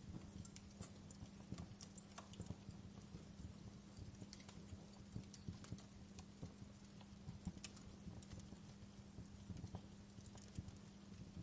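Wood fire burning in a fireplace, crackling with irregular small pops and snaps over a faint steady low hum.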